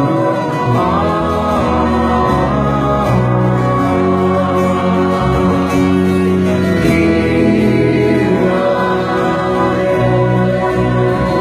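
Live band playing a song: acoustic guitar and drums under several voices singing together in harmony, steady and full throughout.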